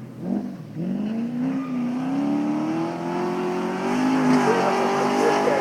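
VX Holden Commodore road car accelerating hard up the hillclimb course. Its engine note dips briefly about half a second in, as on a gear change, then climbs steadily as the revs rise.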